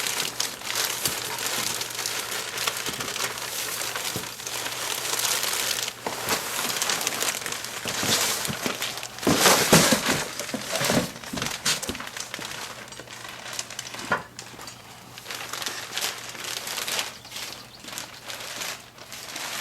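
Packaging crinkling and rustling as a telescope tripod is pulled out of its cardboard box, with a few sharp knocks about nine to eleven seconds in; the rustling thins to scattered clicks over the last several seconds.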